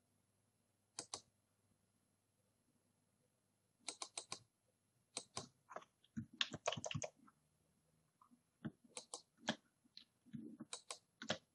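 Computer mouse and keyboard clicks in short irregular clusters, starting with a quick double click about a second in, with near silence between them.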